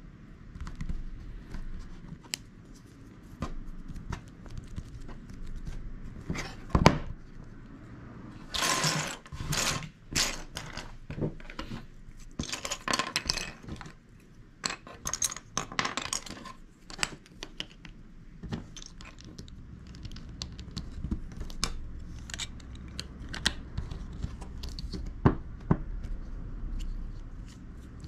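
Plastic LEGO bricks and plates being handled: pieces clicking onto a baseplate and clattering against each other, in many separate clicks and short rattling bursts, with one sharp click about seven seconds in.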